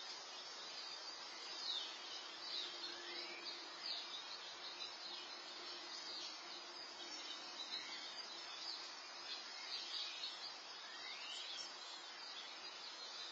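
Small birds chirping: short sweeping chirps scattered irregularly over a steady hiss, picked up by an outdoor security camera's microphone.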